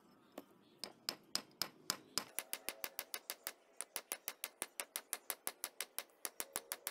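Hand hammer striking a steel screwdriver's flat tip laid on another hammer's head as an anvil: rapid metal-on-metal taps, about five a second, each with a short ring, beating the blade tip flat to reshape it.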